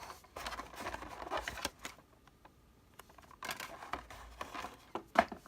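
Cardboard card box and booster-pack packaging being handled: rustling and light clicks in two spells with a short lull between, and a sharper click near the end.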